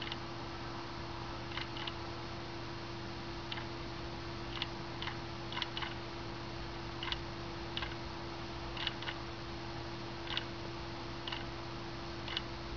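Quartz wall clock movement ticking at uneven intervals, sometimes two ticks in quick succession and sometimes a gap of more than a second. An ATtiny13a microcontroller drives the movement, varying the second hand's pace while keeping one full turn a minute. A steady low hum runs underneath.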